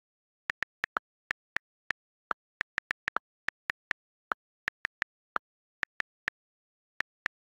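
iPhone on-screen keyboard click sounds as letters are typed: about two dozen short, crisp clicks at an uneven typing pace, with complete silence between them. A few clicks are a little lower in pitch than the rest.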